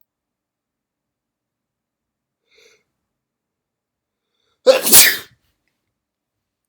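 A person's single loud, wet sneeze, deliberately induced, bursting out about four and a half seconds in and lasting about half a second.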